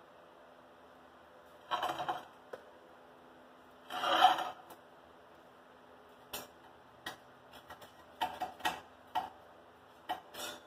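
Irregular scraping and sharp knocking: a scrape about two seconds in, a louder one about four seconds in, then a run of quick clicks and short scrapes near the end, over a faint steady hum.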